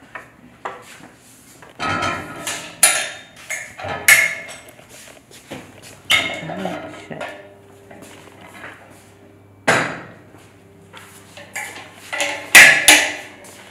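Heavy steel clanks and knocks as the offset smoker's hinged folding smokestack is handled. About seven sharp metal knocks come at irregular times, some ringing briefly, and the loudest two fall close together near the end.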